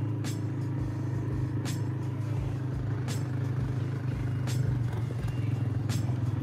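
ATV engine running steadily while riding a dirt trail, with short sharp knocks about every second and a half.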